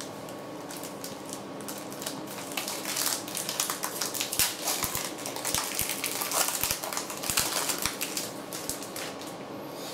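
Foil wrapper of a Pokémon booster pack crinkling as it is torn open by hand: a dense run of small crackles and clicks that starts about two and a half seconds in and stops just before the end.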